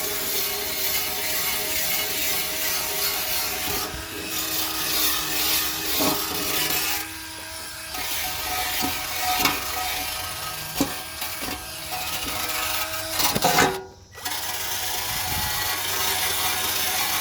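Corrosion being scraped and scrubbed off a Westinghouse street light's housing by hand: a continuous rasping rub with scattered knocks. It drops out briefly near the end.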